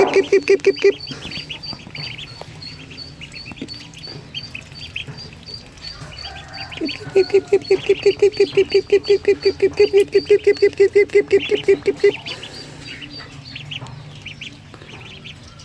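Ducklings peeping: short high calls repeated about three times a second. A louder, lower rapid pulsing sound of about five beats a second comes in the first second and again from about 7 to 12 seconds.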